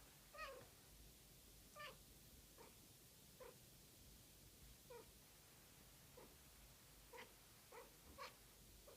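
Domestic cat meowing repeatedly in short chirpy calls, about eleven over nine seconds at uneven spacing.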